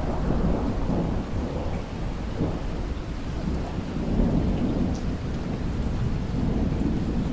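A long roll of thunder rumbling over steady rain; the rumble swells in at the start and keeps going throughout.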